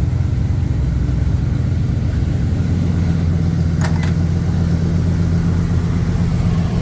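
1976 Jeep J10's engine idling steadily with the air conditioning running, a constant low hum.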